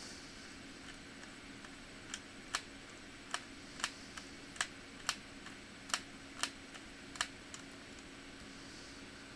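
About a dozen sharp, irregular clicks of small hard parts, between about two and seven and a half seconds in, over a steady low hum.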